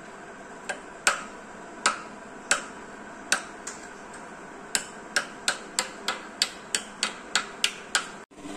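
Sharp metallic taps of a tool working on the front end of a stripped four-cylinder engine block's crankshaft: a few spaced strikes, then a steady run of about three taps a second from about five seconds in, stopping abruptly near the end.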